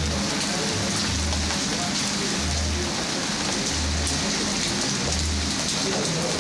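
Steady rain falling, a constant even hiss. Beneath it, a low hum pulses on and off about every second and a quarter.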